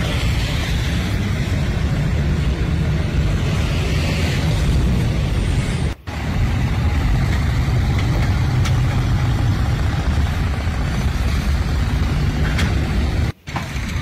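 Steady, loud, low rumbling noise of an engine-like kind. It drops out for a moment twice: about six seconds in and near the end.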